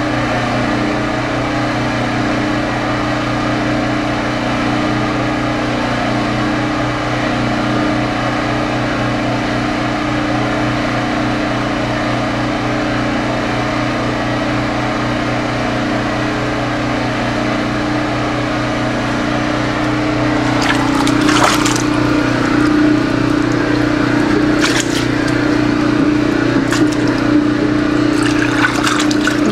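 Steady rushing of hurricane storm-surge water and wind outside, with a steady low hum underneath. A few sharp knocks or rattles come in the last third.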